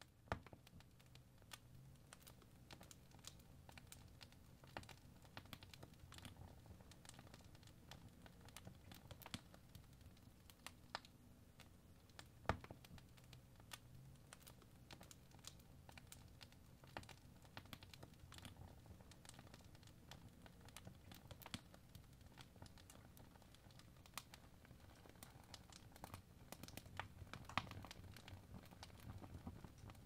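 Faint crackling of a burning fire: irregular small pops and snaps over a low, steady rumble of flames, with a sharper snap about twelve seconds in and another near the end.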